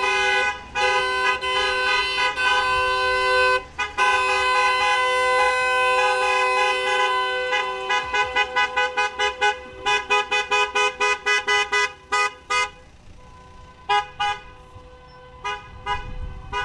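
Car horn honking: a long held blast for several seconds, then a run of quick short toots about four a second, then a few scattered toots near the end.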